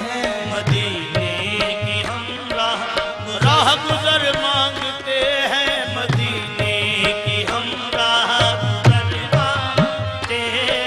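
Qawwali-style naat: male voices singing with wavering ornaments over held harmonium chords, with tabla playing a steady rhythm.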